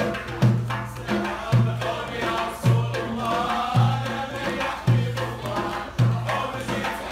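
Background music: a deep drum struck about once a second in a steady beat, with a wavering melody above it.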